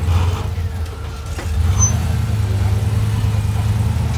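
Rock-crawling buggy's engine running under load as it climbs a steep rock ledge, a low steady rumble that eases briefly and then picks up again about a second and a half in.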